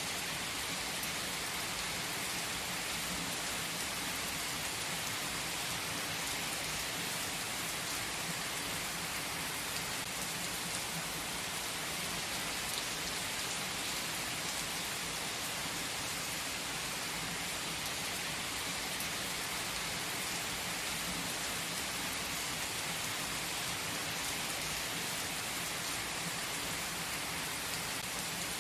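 Steady rain, an even sound with no breaks or rises.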